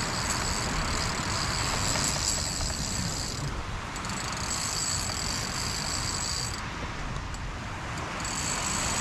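Steady surf and wind noise on the beach, with a thin high whine that runs most of the time but stops twice, briefly about a third of the way in and again for about a second and a half before the end.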